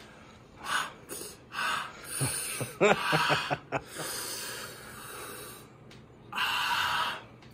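A man breathing hard through a wide-open mouth: a series of forceful exhales, a short vocal sound about three seconds in, and a long exhale near the end. It is panting against the burn of a Carolina Reaper chip.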